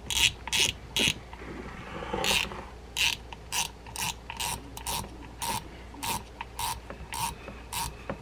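Penn Spinfisher V 6500LL spinning reel's front drag being tightened by hand, its clicker giving sharp, even clicks. After a few irregular clicks the rhythm settles at about two clicks a second.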